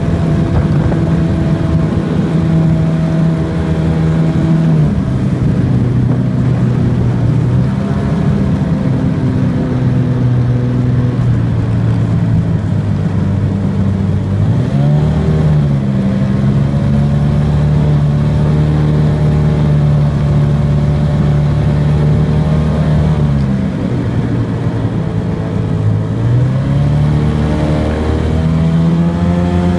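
Racing two-stroke Mercury MK28 outboard on a small hydroplane running at speed, loud and steady. Its pitch falls and climbs back several times as the throttle is eased and opened: a drop about five seconds in, a dip around the middle, and another drop late on before it rises again near the end.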